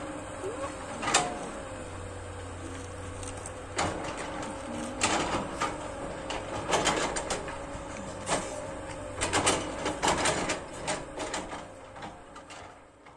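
SANY hydraulic excavator working: its engine hums steadily under load while short, irregular clanks and knocks come from the digging arm and bucket. The sound fades out near the end.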